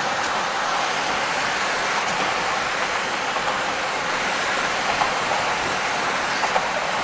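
Steady road and wind noise of a car driving along, an even rushing hiss with no pitched engine note standing out.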